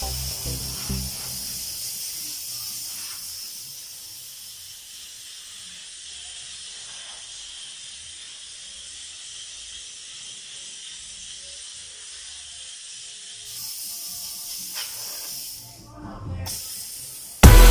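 Steam cleaner jetting steam with a steady hiss, breaking off briefly near the end; faint music underneath, and loud drum-led music cuts in at the very end.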